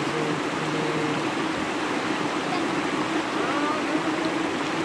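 Shallow river running over and between rocks: a steady rushing of water.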